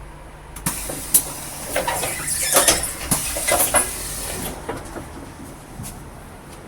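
Air-operated parts of a London bus clunking and hissing: a run of knocks and sharp hisses of air for about four seconds, over the low hum of the bus, then settling to the hum.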